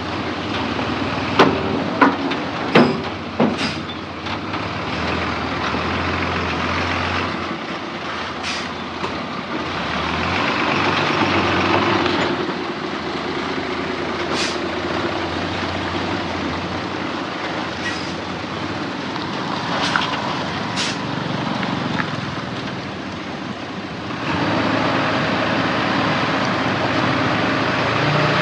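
Heavy diesel earthmoving machinery, dump truck and bulldozer, running steadily. A cluster of four loud sharp knocks comes a couple of seconds in, and several brief high, sharp sounds follow later. The engine note gets louder near the end.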